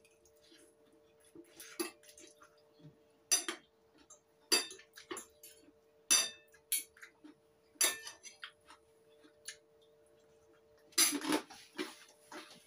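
Metal fork and spoon clinking and scraping against a ceramic plate of noodles while eating: sharp separate clinks every second or so, then a quick cluster of clatter near the end. A faint steady hum runs underneath.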